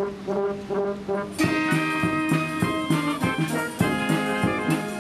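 Brass band music with a steady beat. The full brass comes in with held chords about a second and a half in.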